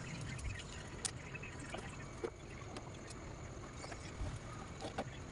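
Handling noise from working woven rattan cane webbing on a wooden chair seat: a few scattered light clicks and knocks, the sharpest about a second in, over a low steady background rumble.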